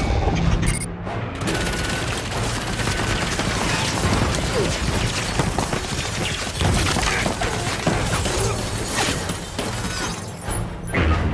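Film action soundtrack: heavy gunfire with crashes and booms, mixed over a dramatic score.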